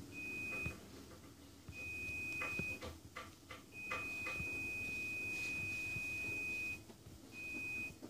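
A high-pitched electronic beep of one steady tone, sounding four times at uneven lengths: two short beeps, a longer one of about a second, and one held for about three seconds. A few faint clicks fall in the middle.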